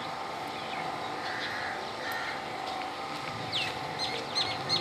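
Steady background noise of an outdoor gathering, with a few quick high chirps from birds near the end.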